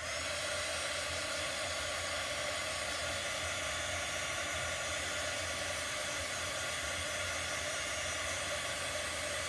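Handheld blow dryer switching on and running steadily, drying freshly applied chalk paste.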